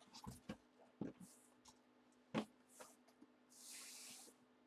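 Faint handling of a cardboard box: a few soft knocks and clicks, and short hissing slides of cardboard against cardboard, the longest about three and a half seconds in.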